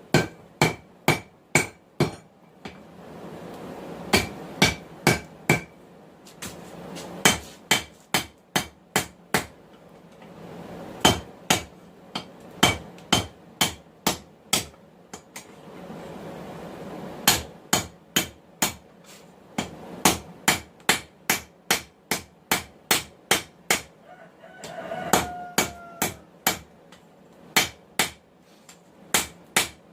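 Hand hammer striking hot 1080 high-carbon steel on an anvil, drawing out a knife tang: runs of sharp, ringing blows at about three a second, broken by short pauses. A brief pitched call is heard about 25 seconds in.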